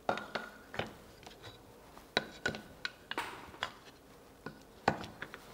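Wooden boards and carved combs being handled and set down on a cutting mat: a dozen or so light wooden knocks and clicks at irregular spacing, the sharpest just at the start and about five seconds in.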